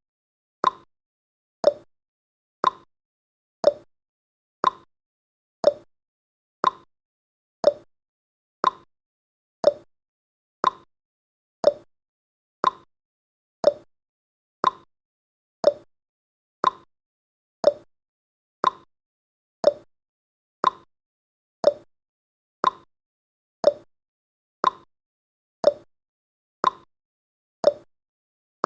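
Countdown timer's tick sound effect: a short, sharp tick once every second, evenly spaced, with silence between.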